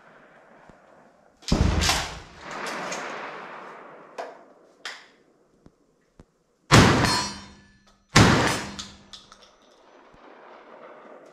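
Two 12-gauge over-and-under shotgun shots with slugs, about a second and a half apart, each followed by an echoing tail. Earlier there is another loud bang with a long fading tail, then a couple of light clicks.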